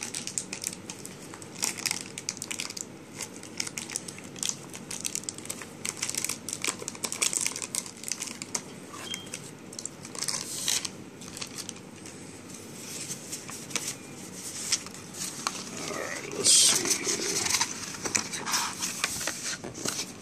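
Cardboard box and paper contents being handled: crinkling and rustling with many small sharp clicks, and a louder rustle about three-quarters of the way through as a rolled paper poster is drawn out.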